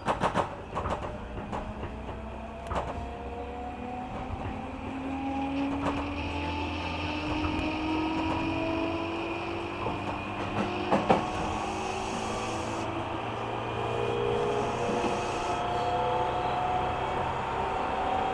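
Interior running sound of a JR 205-series electric train gathering speed. The traction motor and gear whine rises steadily in pitch over a steady rumble, with a few sharp clacks from the wheels on the track.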